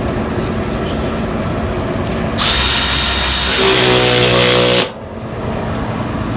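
Milwaukee Fuel cordless ratchet running a bolt on a metal fan housing: a loud motor whine starts a little over two seconds in, lasts about two and a half seconds, and cuts off suddenly.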